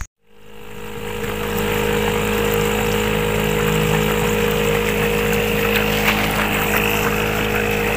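Small outboard motor running steadily at cruising speed, pushing a boat along the river. It comes in after a brief dropout, swells over the first second or so, then holds an even pitch.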